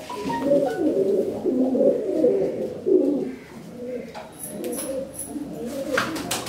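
Domestic pigeons cooing, a low warbling coo that keeps going, with a few sharp wing flaps near the end as a pigeon takes off.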